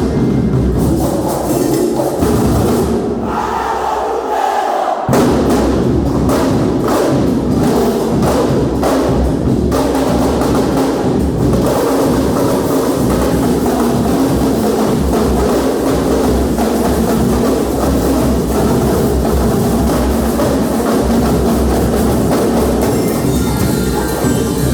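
A banda de guerra, a marching drum-and-bugle band, playing, with drums beating prominently. The low drums drop out briefly about three seconds in, then come back in with a run of strokes.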